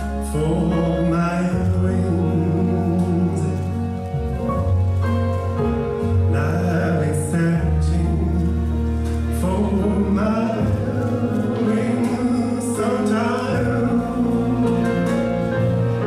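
Recorded music with singing over long held bass notes, played for a stage dance.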